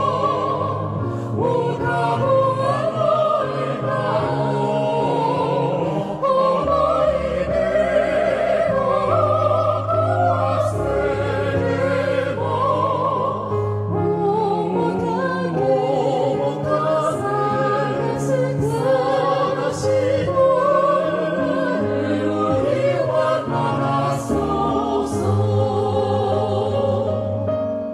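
A vocal quartet of two women and two men singing together in harmony through microphones.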